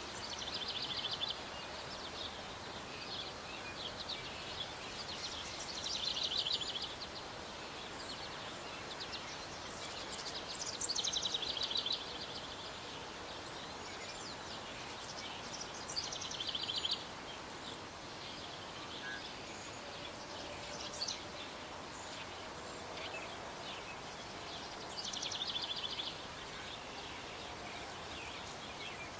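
A small songbird singing short, fast trilled phrases, about six of them, one every four to five seconds, over a steady outdoor hiss.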